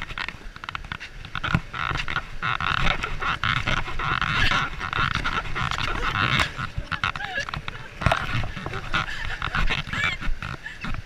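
A person scrambling across an inflatable obstacle course: repeated thumps and rubbing on the air-filled vinyl, with a few short squeaky sounds.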